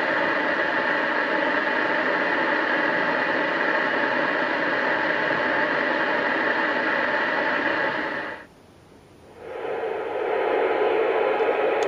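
Steady receiver hiss from a Murphy 1500 CB base station on an empty channel 36, with no station coming back. About eight seconds in it cuts out for about a second, and a lower, duller hiss follows as the Alinco DX-SR8 comes on, listening on the same channel in FM.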